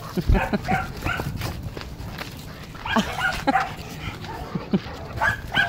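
Two dogs play-barking and yipping in several short bursts while wrestling, with a low scuffling thump on the dirt near the start.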